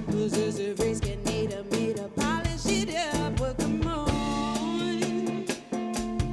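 A band playing a song: a drum kit keeps a steady beat under bass and a melodic lead line that bends in pitch.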